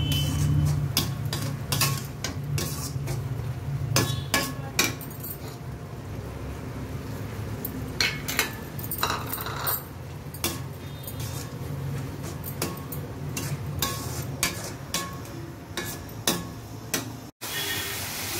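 Metal spatula scraping and clinking against a stainless steel pan as it stirs thick beetroot halwa cooking down in its final stage, over a low steady hum. The sound cuts out for an instant near the end.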